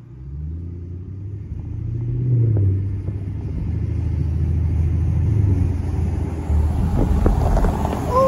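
Semi truck's diesel engine running with a low rumble. It revs briefly about two seconds in, then runs steady.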